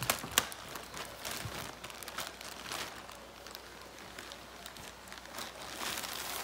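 Thin plastic mailer bag crinkling and rustling as hands rummage inside it and pull its contents out, with a sharp crackle about half a second in and a louder stretch of crinkling near the end.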